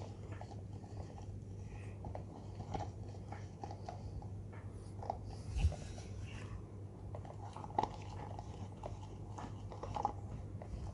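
Steady low hum from the KDK KY-15D ceiling fan's AC motor running, with many small irregular clicks and crackles over it and a couple of louder taps around the middle.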